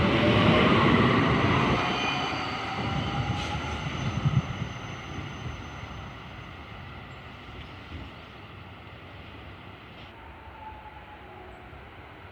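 Tatra KT4D tram pulling away and accelerating, its traction motors whining steadily higher in pitch over the noise of wheels on rail. A few knocks come about four seconds in, and the sound then fades as the tram moves off.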